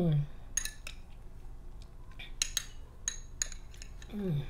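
Metal spoon scraping and clinking against a glass bowl of ice cream, several sharp clinks with a brief ring. A short falling 'mm' hum from the eater comes at the start and again near the end.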